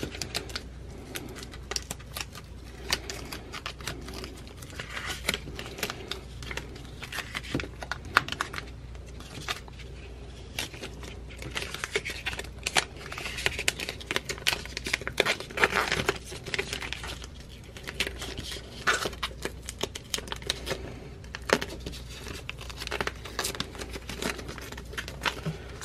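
Holographic adhesive vinyl being peeled by hand off its paper backing sheet: irregular crinkling and crackling of the plastic film and paper, with many small clicks.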